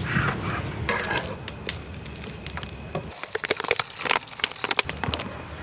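Food-preparation sounds: a knife working on a wooden board, then from about halfway a quick run of sharp clicks and knocks.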